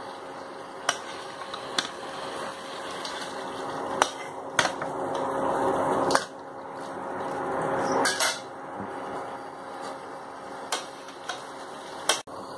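A steel spoon clinking and knocking now and then against a stainless-steel kadai as fried eggplant pieces are set into a simmering yogurt gravy, over a steady hiss and a faint low hum.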